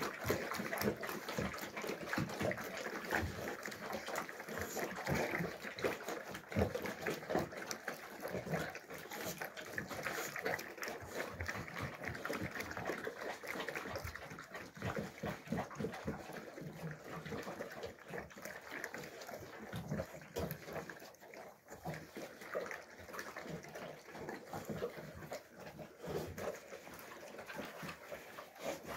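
Alabai (Central Asian Shepherd) puppy eating from a bowl: an irregular run of wet chewing and slurping smacks.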